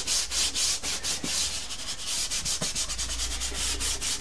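Side of a hand rubbing soft pastel into the tooth of pastel paper, blending the colour into an even layer. It is a quick run of dry swishing strokes, several a second.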